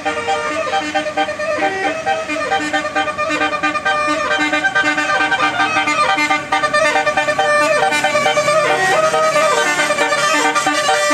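Multi-tone 'telolet basuri' bus horn playing a tune: a quick run of held notes stepping up and down in pitch.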